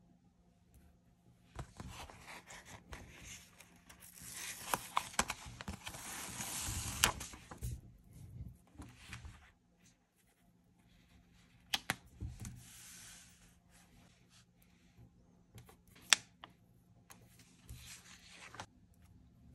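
A large paper sticker is peeled off its backing sheet with a long rasping hiss that lasts several seconds. It is then laid on paper and rubbed flat by hand, with paper rustling and a few sharp ticks.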